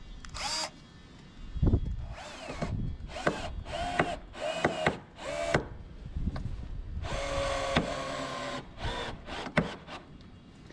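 Cordless drill-driver whining in a series of short bursts, each rising in pitch as it spins up, driving screws through a rubber rubbing strake into a boat's wooden rub rail. A dull knock comes a little under two seconds in.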